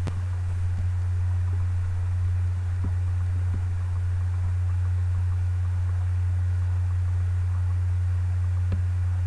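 A steady low hum, with a few faint light clicks scattered through it.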